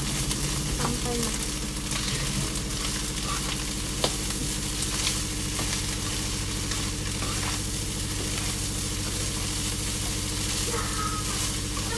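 Fried rice sizzling in a frying pan while it is stirred and turned with a wooden spatula, with the spatula scraping against the pan and one sharp tap about four seconds in.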